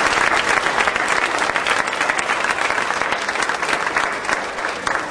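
Audience applauding, the clapping gradually thinning out toward the end.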